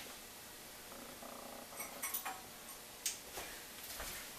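Faint handling sounds of a kitchen cabinet and small metal measuring cups: a brief faint tone about a second in, a few light clicks, then a sharper knock about three seconds in.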